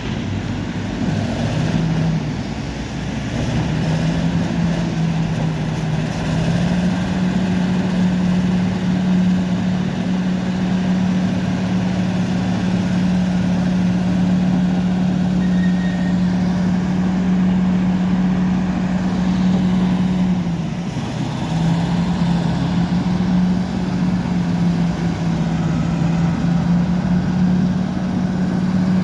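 Bulldozer's diesel engine running under load, its pitch stepping up over the first few seconds and then holding high. It drops briefly about twenty seconds in before rising again.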